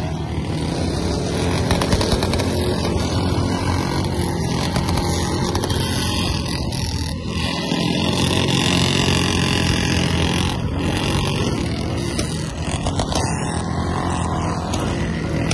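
Several motorcycles riding together in a group, their engines running steadily.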